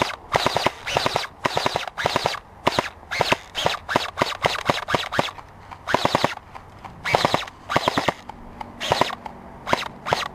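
Airsoft guns firing in rapid short bursts of sharp clicking shots. There are about two bursts a second for the first five seconds, then sparser bursts until near the end.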